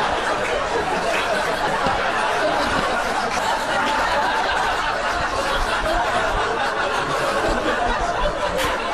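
Many voices laughing and chattering at once, a dense and steady din.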